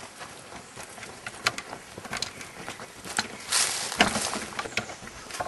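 Footsteps crunching on a dirt path strewn with dry leaves, in uneven steps, with a louder rustle about three and a half seconds in.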